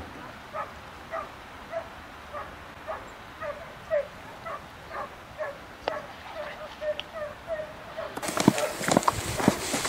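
Hunting dogs barking over and over, about two barks a second. About eight seconds in, louder rustling noise and sharp thuds take over.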